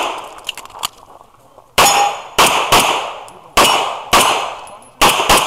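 Seven quick shots from a 1911-style pistol, starting about two seconds in, in pairs and singles. Several shots are followed by a short metallic ring.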